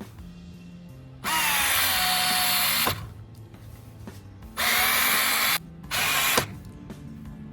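Small cordless screwdriver running free three times: one run of about a second and a half, then two shorter ones close together. Each run has a high motor whine whose pitch drops as it starts. Background music plays underneath.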